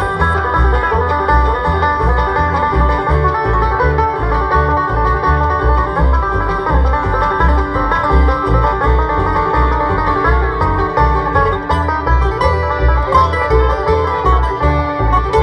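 Bluegrass band playing an instrumental break, the banjo prominent over guitar and fiddle, with the upright bass keeping a steady pulsing beat.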